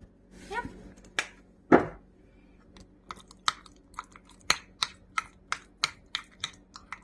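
Metal fork mixing chopped egg and mayonnaise in a glass bowl, clinking against the glass about three times a second. Before the mixing starts there is a single loud knock about two seconds in.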